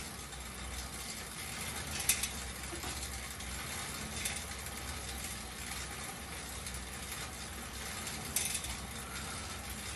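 Schwinn air-resistance fan exercise bike being pedaled: the fan wheel whirs steadily, with mechanical clicking from the drive and two sharper clicks, about two seconds in and about eight seconds in.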